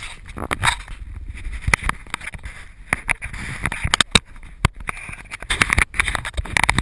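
Handling and rubbing noise on a body-worn action camera's microphone during a rock scramble: a steady low rumble with many sharp knocks and scrapes.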